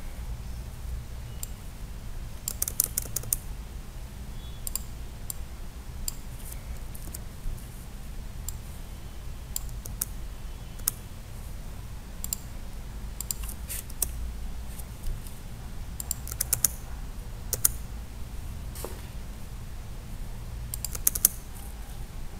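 Computer keyboard keystrokes and clicks, scattered and coming in short clusters, over a steady low hum.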